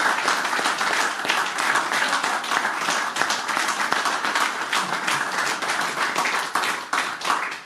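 A small audience applauding by hand-clapping, steady, tapering off near the end.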